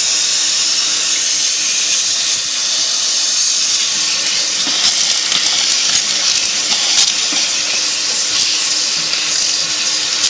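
Vacuum cleaner running steadily: a loud, even hiss of rushing air over a steady hum, with a few light clicks partway through.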